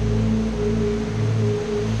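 Background music: slow ambient chords of long, held low tones that swell and fade.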